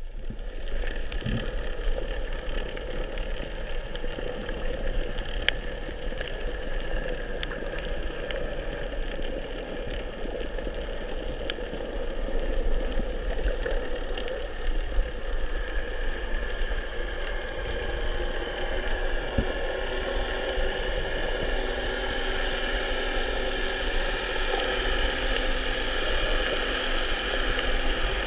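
Underwater ambience heard through a camera's waterproof housing: a steady muffled drone with faint scattered clicks.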